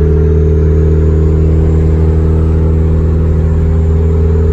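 Turbocharged Acura CL's F23A four-cylinder engine droning steadily at highway cruise, heard inside the cabin along with road noise.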